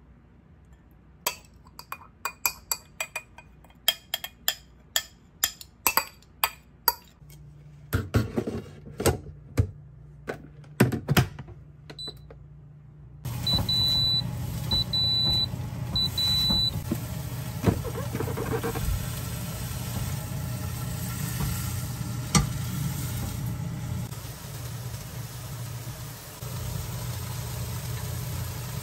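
A run of sharp clicks and knocks over the first dozen seconds. Then a Panasonic rice cooker beeps three times, high-pitched, over a steady low hum.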